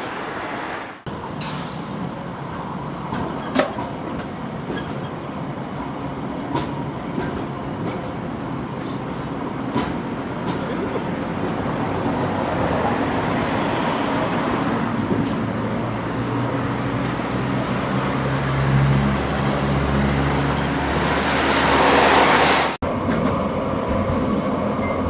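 Škoda 15T ForCity low-floor tram running, with a steady rail-vehicle noise and a few sharp clicks. A low hum from its electric drive builds over the last several seconds and is loudest shortly before the end.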